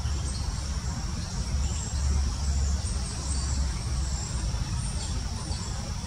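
A steady low rumble under a steady high-pitched insect drone, with a few faint bird chirps. No clear pecking strikes stand out.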